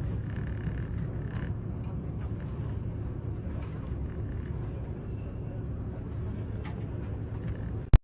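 Steady low rumble of a KiHa 85 series diesel railcar with its diesel engines running, with a few faint clicks.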